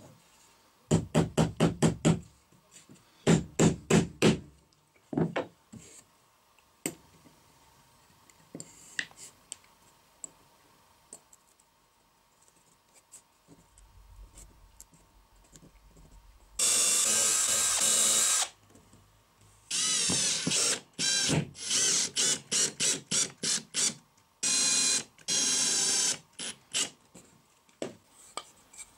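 A small cordless drill run in short trigger bursts: two runs of about six quick pulses in the first five seconds. Later, masking tape is pulled off the roll in one long rip, then in a rapid series of shorter rips as it is wound around a wooden block.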